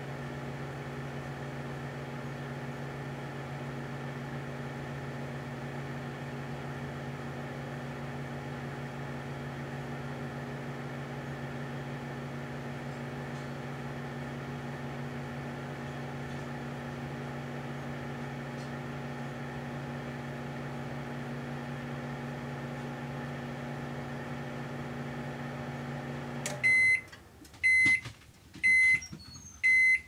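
Rival microwave oven running with a steady hum, then cutting off near the end and beeping four times, about once a second, to signal the end of the cooking cycle.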